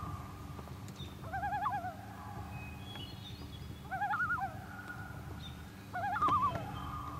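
Common loon giving its territorial yodel: three loud wavering, quavering phrases about two seconds apart, linked by held notes.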